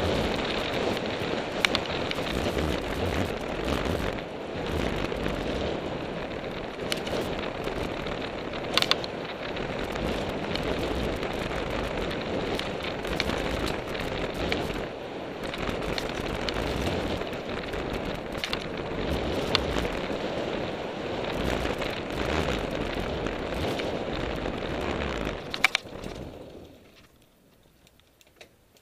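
Wind rushing over a helmet-mounted camera's microphone together with a mountain bike's tyres rolling and rattling down a dirt forest trail, with scattered sharp knocks from bumps. About 26 s in the noise dies away to near quiet.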